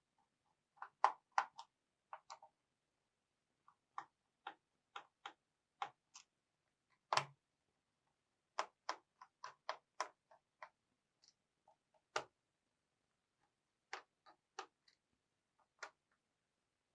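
Small, sharp, irregular clicks and ticks of a screwdriver working out the screws that hold a laptop battery in place, some in quick clusters, with two louder knocks about seven and twelve seconds in.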